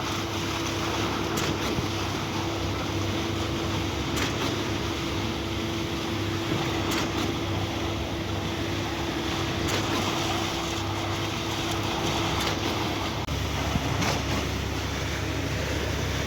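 Truck-mounted concrete pump running steadily during a pour, with a sharp knock every two to three seconds. Near the end the steady hum stops and a deeper rumble takes over.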